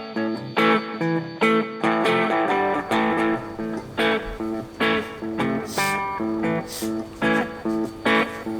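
Background guitar music: plucked guitar notes and chords in a steady, even rhythm.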